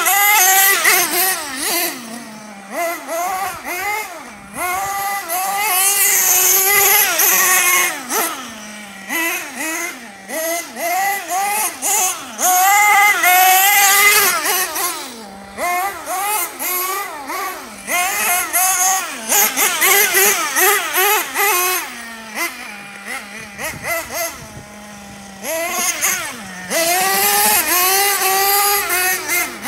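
Nitro engine of a Team Associated MGT 4.6 RC monster truck revving up and down again and again as it is driven hard, its pitch rising and falling with each burst of throttle.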